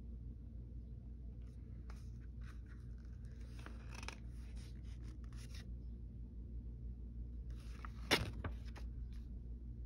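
Paper pages of a sewing machine instruction booklet being handled and turned: soft rustling a couple of seconds in, then a louder, sharp page-turn about eight seconds in. A steady low hum runs underneath.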